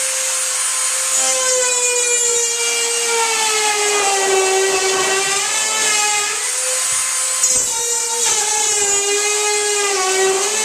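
Dremel rotary tool with a planer attachment running at a steady high whine as it shaves the paint-thickened top corner of a sticking wooden door. Its pitch sags slightly a few times as the cutter takes load.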